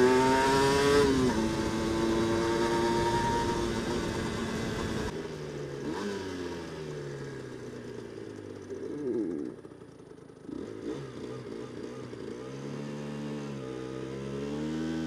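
Aprilia RS125 two-stroke single-cylinder engine under way. The revs climb for the first second, then drop sharply as it shifts up. From about five seconds in the engine slows with its pitch falling in steps, dips to a low murmur around ten seconds, then picks up again near the end.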